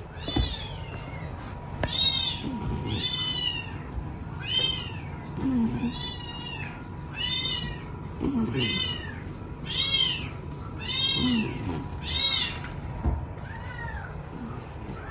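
A cat meowing over and over: a dozen or so short, high-pitched meows, about one a second, the last one fainter.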